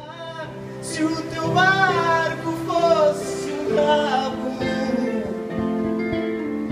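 A man singing with acoustic guitar accompaniment; the voice rises and falls in long held, wavering notes over sustained guitar notes.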